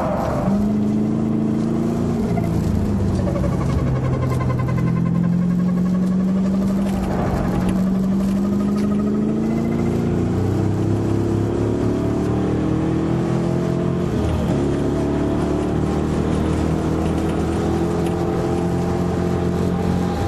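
LS7 7.0-litre V8 of a TVR Sagaris pulling hard on track. The engine note climbs steadily and drops back sharply about two, seven and fourteen seconds in, as it changes gear or lifts.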